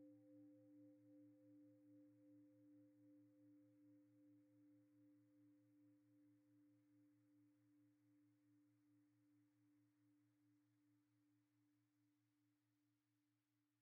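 Very faint ringing tone with an even waver of about two or three beats a second, slowly dying away: the last held note of the closing music fading out.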